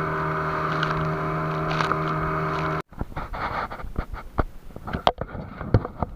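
A small engine running steadily at one even pitch for nearly three seconds, then cutting off abruptly, followed by scattered light taps and knocks.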